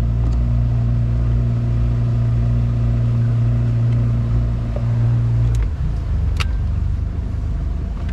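Boat's outboard motor running steadily with a constant hum, which breaks into a rougher, less even sound about five and a half seconds in.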